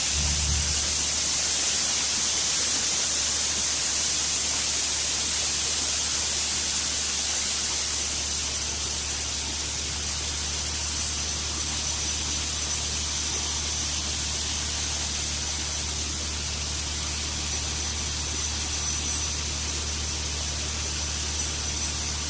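Harvest machinery unloading shelled corn into a grain truck: a steady hiss of grain and dust over the low, steady drone of a diesel engine, with a few faint ticks.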